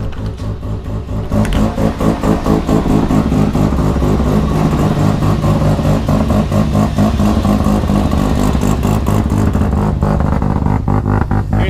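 Mazda RX-7 FD3S's turbocharged semi-peripheral-port rotary engine running steadily at idle, loud with a fast, choppy pulse. It gets louder about a second in.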